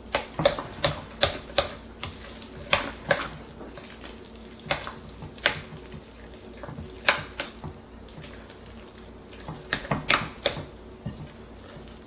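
A thick ricotta, egg and mozzarella mixture being stirred by hand in a mixing bowl, with the utensil knocking against the bowl in irregular sharp clicks.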